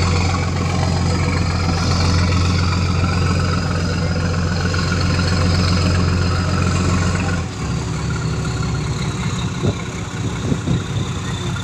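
Diesel engines of the Dumai Express 01 passenger ferry running with a steady low drone. About seven and a half seconds in, the deep note drops away and the engines run lower and quieter, with a few short knocks near the end.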